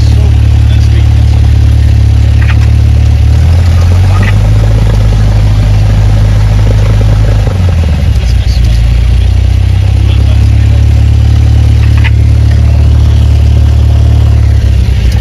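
Cessna 172's piston engine and propeller running at taxi power, heard from inside the cockpit: a loud, steady low drone. Its pitch shifts about three and a half seconds in and again around eight seconds in as the power changes.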